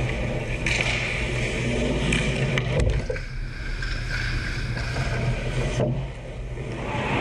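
Ice hockey play around the net: skate blades scraping the ice and sticks and puck clacking, with a few sharp knocks about two to three seconds in, over a steady low hum.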